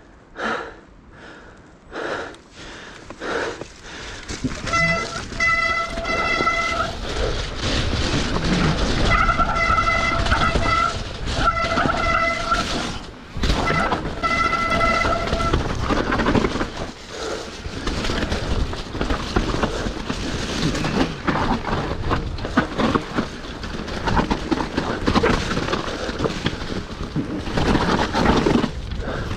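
Mountain bike disc brakes squealing in four separate spells in the first half, a steady high-pitched tone with overtones, over the rattle and rush of tyres on a wet, muddy trail descent. The squeal is the brake screaming that the rider hopes new pads will cure.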